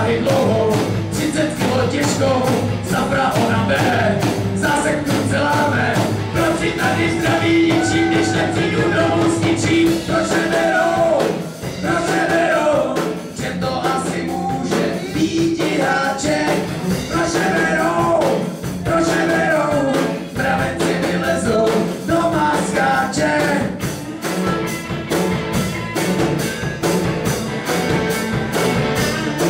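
Live rock band playing: electric guitars, bass guitar and drum kit with a steady beat and a melodic line over the top.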